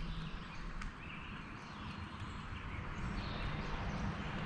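Steady outdoor background noise with a low rumble, and a few faint, short bird chirps.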